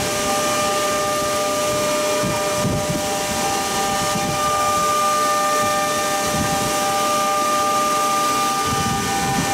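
Four-spindle CNC router with rotary axes cutting spiral shapes into square blanks turned in chucks: the spindles whine at several steady high pitches over rough, uneven cutting noise. One of the whining tones grows stronger about halfway through.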